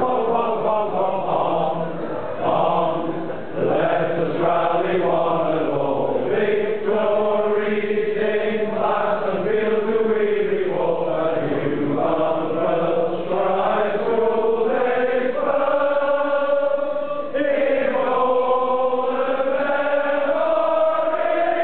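A large group of men singing a school song together, a slow anthem-like tune with longer held notes over its last few seconds.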